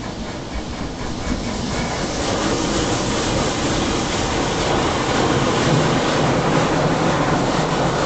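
High-pressure water jets from a Coleman Hanna Water Wizard touchless car wash spraying the car, heard from inside the car as a steady rushing drum. It grows louder over the first two seconds or so, then holds.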